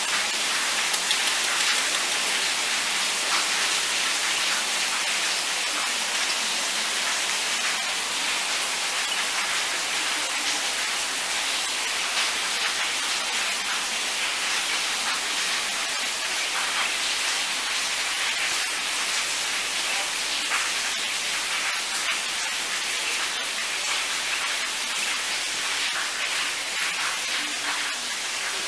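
Steady rain falling: an even hiss of drops, dotted with many small ticks.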